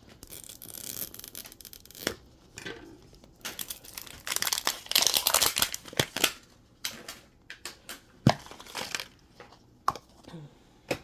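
Thin plastic wrapping being torn and crinkled off a Mini Brands capsule ball, in irregular bursts that are busiest midway, with a few sharp plastic clicks near the end.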